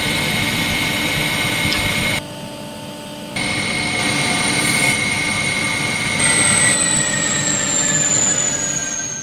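Metal lathe spindle running with a steady high whine over machine noise, briefly quieter about two seconds in. From about six seconds in the whine falls steadily in pitch as the spindle slows down.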